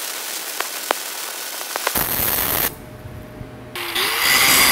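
Self-shielded flux-core (E71T-11) welding arc crackling and sizzling for about two seconds, with a few sharp spatter pops. After a short lull, a DeWalt angle grinder spins up with a rising whine near the end.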